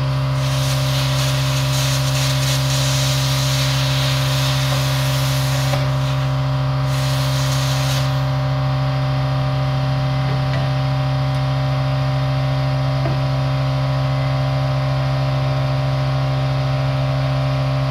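Plasma cutter arc hissing as it cuts through steel plate for about the first eight seconds, thinning briefly about six seconds in, then stopping. Under it, and loudest throughout, a steady low hum with overtones.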